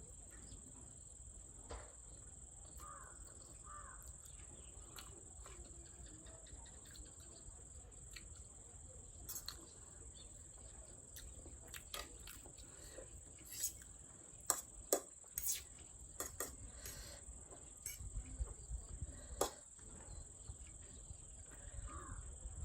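Eating with utensils: scattered sharp clicks and taps against a bowl or plate, a cluster of them in the middle, over a steady high-pitched whine.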